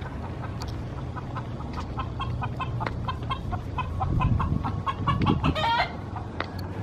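Chicken clucking: a quick run of short clucks, with a longer wavering call about five and a half seconds in.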